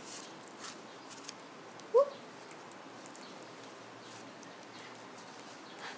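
Faint cloth rustling as a blanket is tugged loose by a hand puppet, with one short rising squeak about two seconds in.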